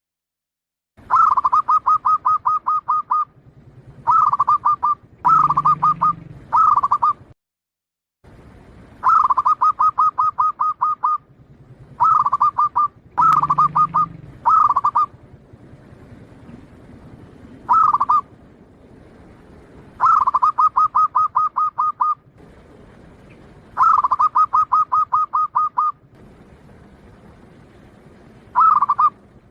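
Zebra dove (perkutut, local Bangkok type) singing its trilled coo. About a dozen phrases of fast, evenly spaced notes come one after another with short pauses between them.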